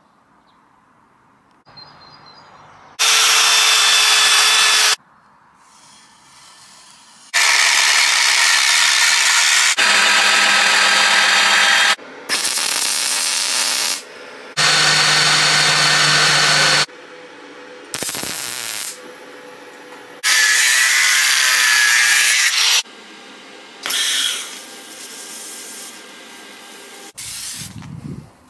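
A string of short, abruptly cut bursts of power tools working steel, a few seconds each, with quieter gaps between. Some carry a steady whine, and one, about two-thirds of the way through, whines with a wavering pitch.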